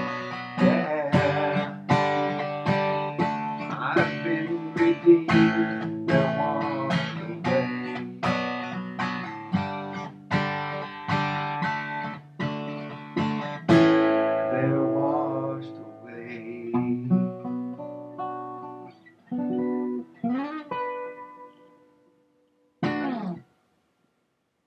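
Acoustic guitar strumming a steady rhythm, then closing the song with a ringing chord about fourteen seconds in. A few slower single notes follow and fade, with one last short note near the end.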